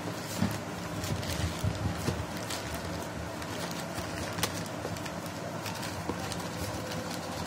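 Plastic courier mailer bag crinkling and rustling as hands pull at its torn opening and work the box inside, with irregular sharp crackles.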